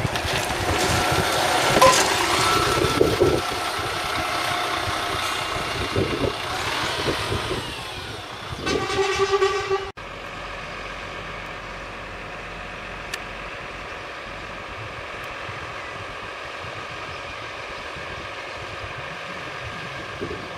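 Diesel double-decker bus driving past close by, its engine running loud, with a horn toot of about a second and a half near the middle. After a sudden cut, a steadier, quieter hum.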